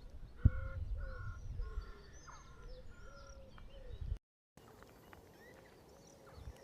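Birds calling in the open air, with a series of short repeated calls about twice a second over the first three seconds and scattered higher chirps. Under them runs a low rumble, with a thump about half a second in. The sound cuts out briefly just after four seconds.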